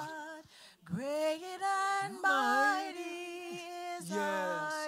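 Voices singing a slow worship song together, with long held notes that glide between pitches.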